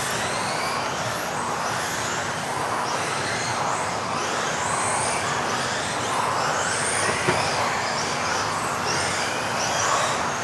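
Several electric RC off-road buggies racing together, their motors giving high whines that rise and fall with the throttle over a steady hiss.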